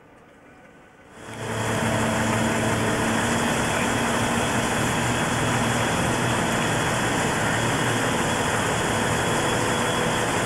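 A heavy engine running steadily under a loud, even noise, cutting in suddenly about a second in.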